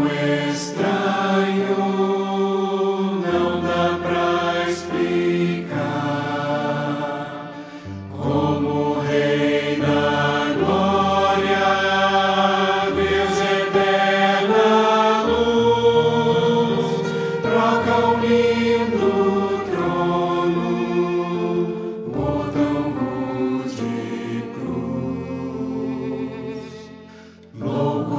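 Mixed four-part choir (sopranos, altos, tenors, basses) singing a slow sacred song in held chords, with piano accompaniment. The singing breaks briefly between phrases about eight seconds in and again near the end.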